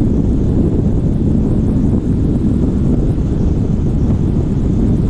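Steady low wind rumble on the microphone of a motorcycle cruising at highway speed, mixed with engine and tyre noise.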